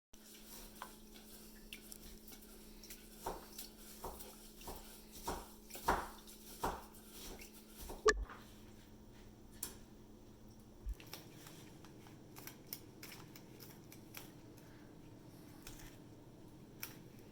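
Irregular knocks and clinks of kitchen utensils and dishes being handled, busiest in the first half with one sharp loudest knock about eight seconds in, then sparser, over a faint steady hum.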